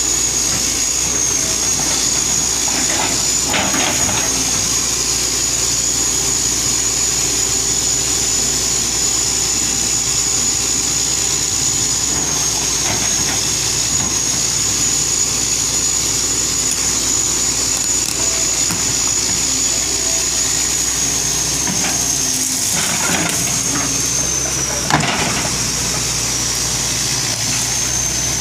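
Diesel engine of a 1983 Hitachi excavator running steadily, with a thin high whine over it. A few knocks come through, the sharpest one near the end.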